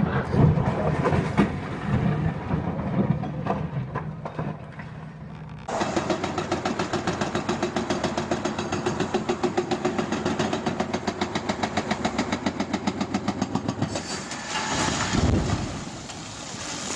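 Excavator demolition: irregular knocks and clatter of rubble for the first few seconds. Then an excavator-mounted hydraulic breaker starts hammering rock in a steady rapid pounding, about six blows a second, over its engine. Near the end the pounding stops and a heavy crash with a deep rumble follows as the broken rock falls.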